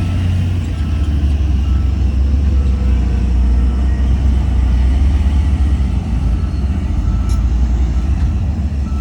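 Heavy earthmoving machinery's diesel engine running steadily with a deep rumble, while a reversing alarm beeps faintly at an even pace.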